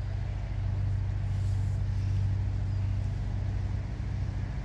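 Large diesel engine running steadily, a low even drone with a fast regular pulse.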